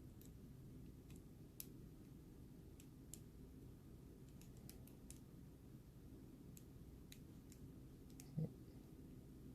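Faint, irregular clicks of a Shurlok combination padlock's number dials being turned one at a time, with a brief low thump about eight seconds in.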